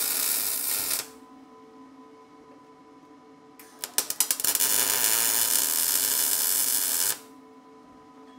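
MIG welding arc, from a Lincoln Electric 210MP, laying welds on the steel welding table: a steady crackling hiss that cuts off about a second in. It starts again with a few sputtering pops about three and a half seconds in and runs for about three seconds before stopping.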